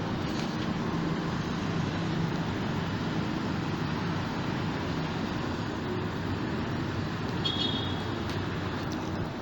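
Steady city traffic noise with a low hum, and a brief high chirp about seven and a half seconds in.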